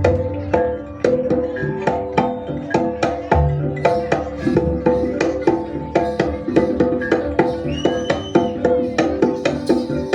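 Jaranan gamelan accompaniment: a hand drum beating a quick, busy rhythm over repeated ringing tones from bronze gong-chimes or metallophones. A brief high gliding tone comes in about two seconds before the end.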